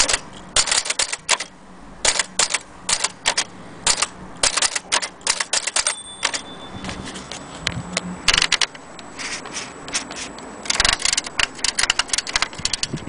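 Vintage Erika portable typewriter being typed on: keys striking in quick, irregular runs of sharp clicks with short pauses between.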